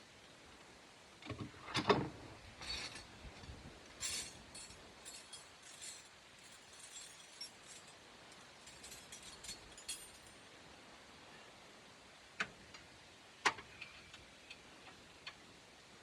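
Metal hand tools and parts being handled: a couple of knocks about two seconds in, a run of light metallic clinks over the next several seconds, then two sharp clicks near the end.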